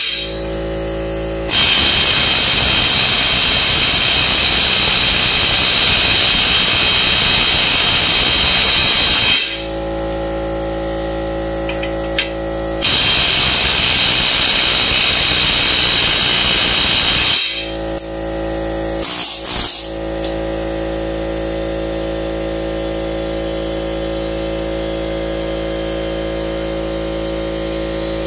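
Pneumatic air chisel hammering, loud, on a seized swing-arm bolt in two long runs of several seconds each, then a couple of short blips near the end. A steady hum with several even tones fills the pauses.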